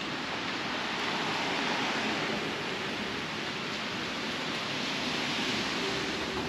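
Steady rushing hiss of tyres on a wet street, swelling and easing over a few seconds.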